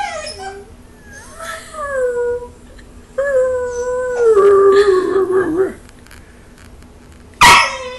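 Belgian Malinois puppy 'talking': a short howling whine that falls in pitch, then a longer drawn-out howl that slides down and turns rough and grumbly, then one sharp, loud bark near the end.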